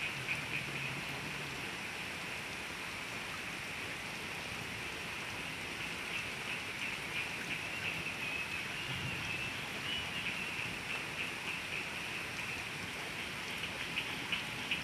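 Steady hiss of rain and running water. A high, fast-pulsing trill rides over it, strongest near the end.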